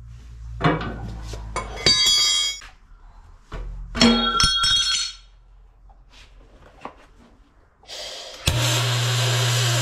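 Sharp metallic clinks that ring for a moment, in two clusters in the first half. Near the end, a steady hissing buzz with a low hum begins and runs for over a second before cutting off sharply: a welding arc on the metal hull plates.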